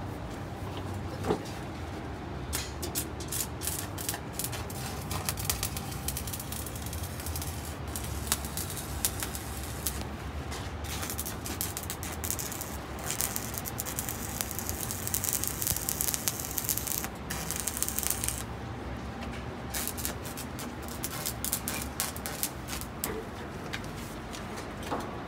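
Arc welding on a steel rebar frame against a dump truck's steel side gate: the arc crackles and sputters in long runs. It starts about two seconds in and breaks off briefly about three-quarters of the way through.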